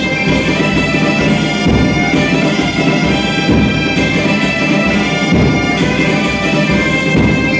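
Galician folk music: gaitas (Galician bagpipes) play a melody over their steady drone, backed by a steady beat on snare drums and a bass drum.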